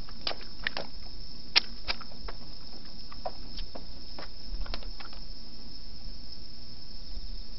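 Landed flathead flopping on rough concrete, its body slapping the ground in an irregular run of sharp slaps, the loudest about a second and a half in, dying away after about five seconds. Under it, a steady high chirring of night insects.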